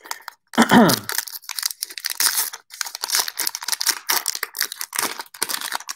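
Wrapper of a baseball card pack being torn open and crinkled by hand: a run of quick crackling tears and rustles. It opens with a short falling hum about a second in.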